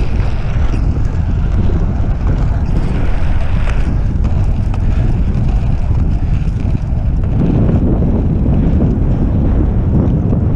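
Wind buffeting the microphone at speed over the steady rumble of inline skate wheels rolling on pavement, a little louder in the last few seconds.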